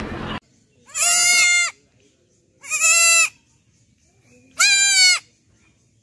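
Young goat kid bleating three times, high-pitched calls each a little under a second long, about two seconds apart. A snatch of music cuts off just before the first bleat.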